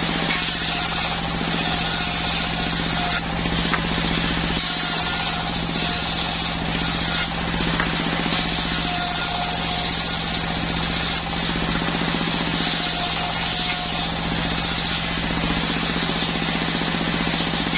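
Motorised circular-saw bench running with a steady hum while its blade cuts through a waru (sea hibiscus) log, the hiss of the cut swelling and easing every second or two as the wood is fed.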